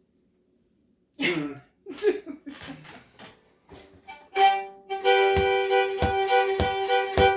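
Old-time fiddle and clawhammer banjo music. A few plucked, quickly fading notes come first, then about four seconds in a bowed fiddle line enters, held over a steady pulse of banjo strokes.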